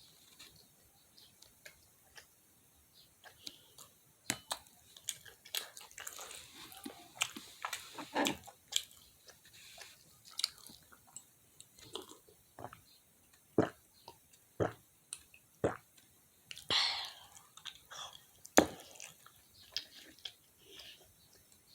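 Close-up eating of fried chicken: irregular crisp crunches and chewing, with a louder crunch or two near the end.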